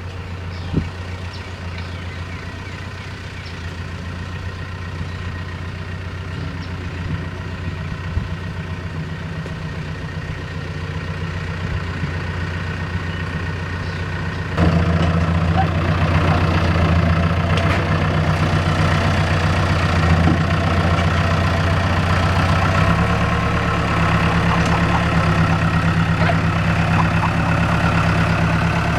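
Farm tractor engine running steadily. It gets suddenly louder about halfway through and shifts in tone a little later.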